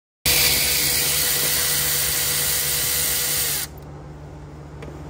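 Milwaukee cordless ratchet running on a bolt on top of a Cummins diesel cylinder head, a loud even whirr that stops abruptly about three and a half seconds in. A few light metallic clicks follow as the tool is worked by hand.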